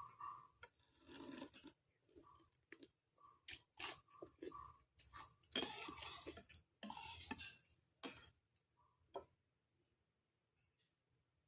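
Close, quiet eating sounds from a bowl of meatball soup: chewing and the clink of a spoon against the bowl, with two louder noisy stretches around the middle.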